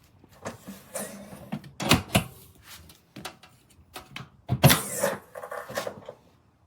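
Aluminium diamond-plate tool box being handled: irregular clunks, clicks and rattles, like its lid and latch being worked, with the loudest knocks about two seconds in and again about four and a half seconds in.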